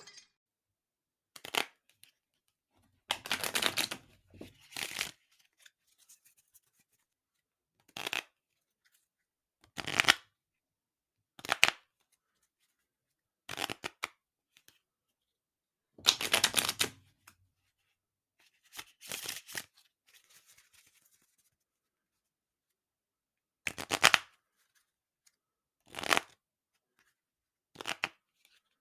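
A deck of playing cards being shuffled in about a dozen separate short takes, each a second or two of papery riffling, with silence between them.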